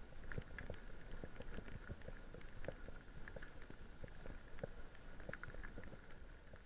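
Mountain bike rattling over a rough, leaf-covered forest trail: irregular clicks and knocks from the bike over a low rumble of tyres on dirt.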